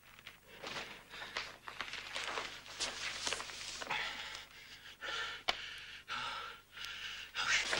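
A man breathing hard: a run of quick, irregular, breathy pants and gasps, about two a second.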